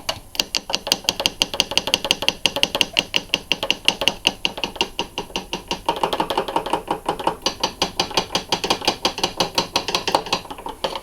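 The DVD mechanism of a Bush 22-inch TV/DVD combo clicks and ratchets rapidly and regularly, about six or seven clicks a second, as a disc is loaded and the drive works.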